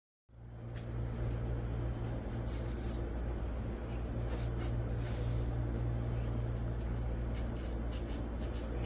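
Cordless drill motor running steadily as a low, even hum, with scattered light clicks. It comes in suddenly just after the start.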